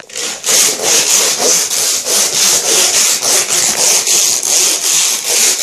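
A toy car's wheels pushed quickly back and forth over a studded plastic building-brick baseplate, making a loud, rasping rattle in regular strokes of about four a second.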